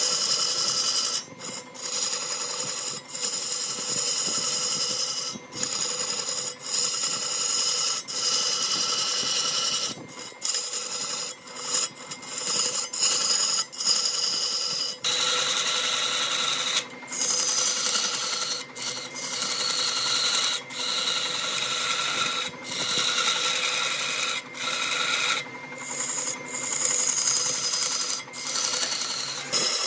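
Power tool working wood in repeated passes: a steady rasping, each pass a second or two long, with short breaks between passes while a steady motor tone carries on underneath.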